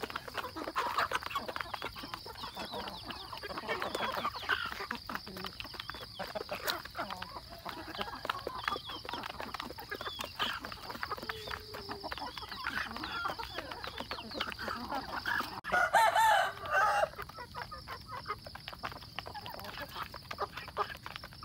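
A flock of young chickens and roosters clucking as they peck feed, beaks rapidly clicking against plastic feed trays. About three-quarters of the way through, a young rooster gives one short, loud crow.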